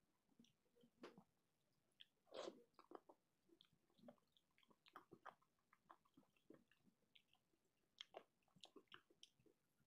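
Faint close-up eating sounds: chewing and mouth smacks of khichuri eaten by hand, with small clicks of fingers mixing the rice on the plate. The loudest, a longer bite or crunch, comes about two and a half seconds in.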